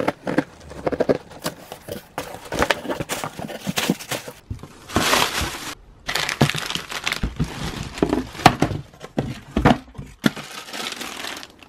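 Unboxing: scissors cut along a cardboard box's taped seam, then cardboard and plastic packaging crinkle and rustle irregularly as items are handled and lifted out, with scattered sharp clicks and knocks.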